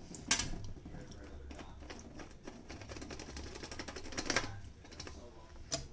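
Plastic dishwasher filter parts being handled: rapid light clicks and taps, with a sharp knock just after the start and another a little past four seconds in.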